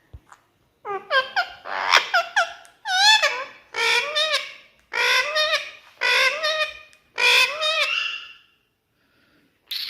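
Indian ringneck parrot chattering in a run of about six high, wavering, speech-like phrases of mimicked talk, stopping about a second before the end.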